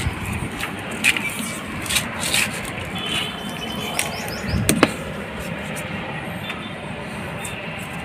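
Electrical insulation tape being pulled off its roll and wound around a water-heater element cap, with a few short tearing and clicking sounds in the first five seconds over a steady background hiss.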